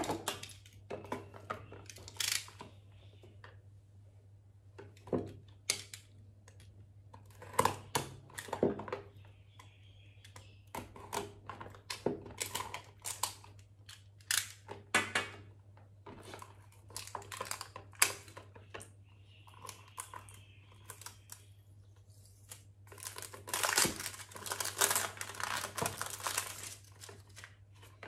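Clear plastic shrink-wrap crinkling and tearing as it is pulled off small cardboard product boxes, with the boxes being handled. The rustling comes in short spells and is busiest near the end.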